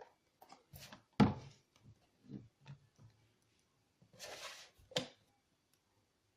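An action camera's box and packaging being handled: several light knocks and clicks, a louder thunk about a second in, then a short rustling slide and a sharp click near the end.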